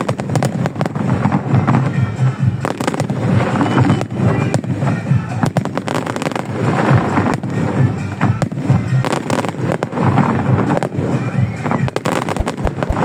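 Fireworks display: a rapid, continuous string of bangs and crackles, with music playing underneath.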